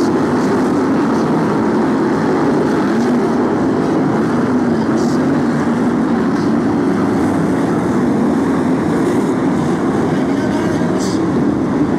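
A pack of BriSCA F1 stock cars' V8 engines racing together, a loud, steady mass of engine noise whose pitch wavers up and down as the cars lap the track.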